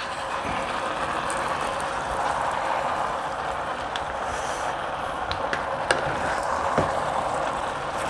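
Gungjung tteokbokki with bulgogi simmering in a hot pan: a steady bubbling sizzle of the sauce, with a few light clicks of chopsticks and a wooden spoon against the pan a little past the middle as the dish is stirred.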